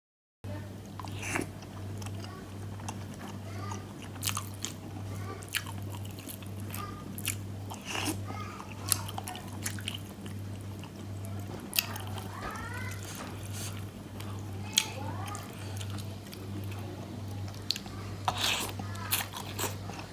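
Close-up eating sounds of meatball soup with rice vermicelli: chewing and biting, with scattered sharp clicks, over a steady low hum.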